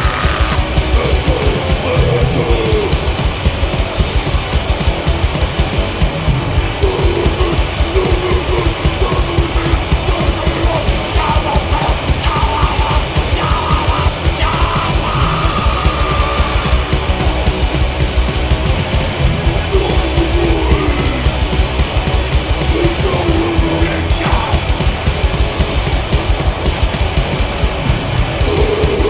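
Hardcore punk recording: distorted electric guitars, bass and drums playing loud and unbroken.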